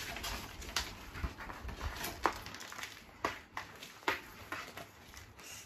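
Irregular light taps and scratches of paper and cardboard: a picture book's pages being handled and two kittens playing with a string toy on a flat cardboard sheet.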